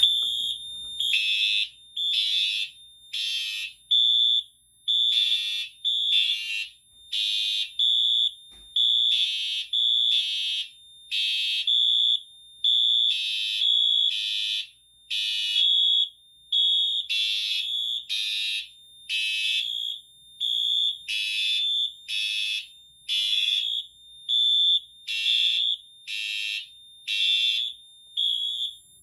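Fire alarm horns on a Firelite MS-5012 conventional fire alarm system sounding in alarm during a system test. A high electronic tone sounds in repeated bursts about a second long with short gaps, and several devices overlap slightly out of step.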